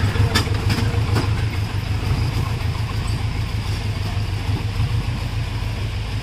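Jeep engine running low and steady as the jeep crawls away over a rocky boulder track, slowly fading, with a few sharp knocks in the first second or so.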